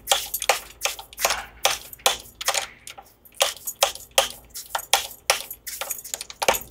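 A string winder cranked fast on the tuning peg of a Les Paul-style electric guitar, winding on a new string: a rattling click about three times a second, one with each turn of the crank.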